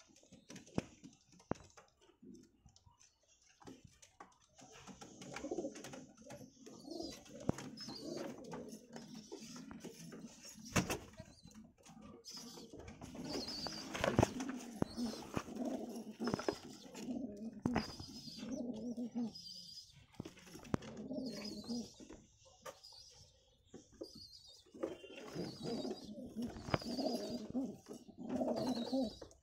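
Domestic pigeons cooing over and over, mixed with higher-pitched chirping and scattered sharp knocks.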